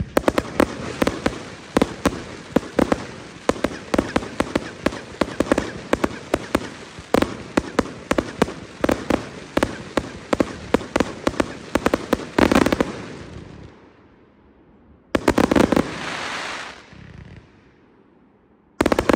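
A 300-shot compound firework cake firing a rapid string of shots, several sharp bangs a second, ending in a dense volley about 12 seconds in. After a brief lull come two short, dense flurries near the end.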